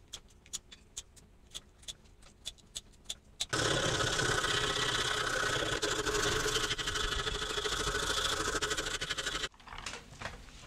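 A row of sharp clicks, then a small motor starts and runs steadily for about six seconds before cutting off suddenly.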